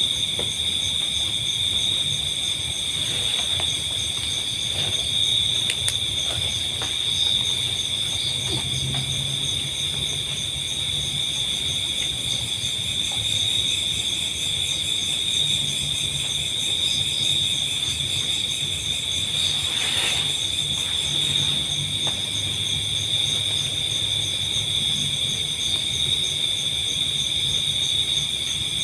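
Night insect chorus: several insects such as crickets calling together in a continuous high-pitched trill, with some pulsing in the higher tones. A faint low hum comes and goes underneath.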